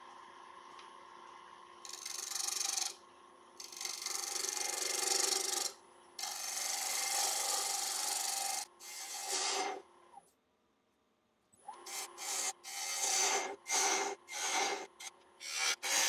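Wood lathe turning an ash bowl while a bowl gouge cuts into the inside: a faint steady lathe hum, then several long cutting passes of shaving noise, a brief drop to near silence past the middle, and a quick run of short cuts near the end.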